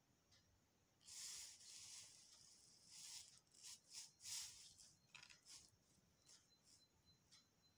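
Soft rustling of cut fabric pieces being handled and laid on paper: a run of faint swishes starting about a second in, tailing off into light taps and brushes as the pieces are pressed flat.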